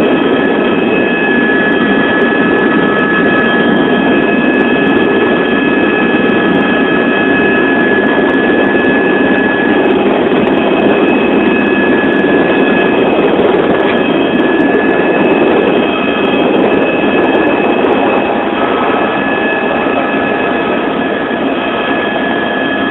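Helicopter running: a steady, loud rush of engine and rotor noise with a high whine held over it.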